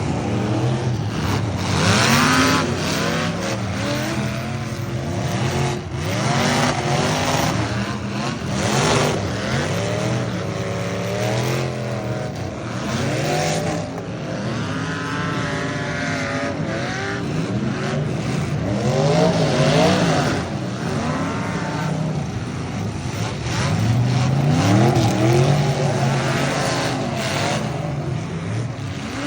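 Full-size race cars' engines running hard in a figure-eight race, several at once, revving up and backing off again and again as they go round the track.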